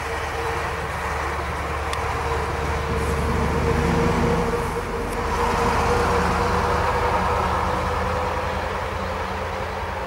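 Road traffic: motor vehicles passing on a nearby road, a steady low engine hum under a wash of noise that swells twice, about four and about six seconds in.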